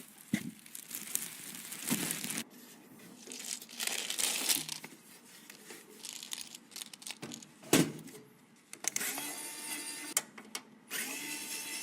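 Close-miked handling of PC parts and their packaging: plastic crinkling and rustling in bursts, with a few sharp clicks and a hard knock about eight seconds in. About nine seconds in, a steadier whirring sound with a faint hum joins in.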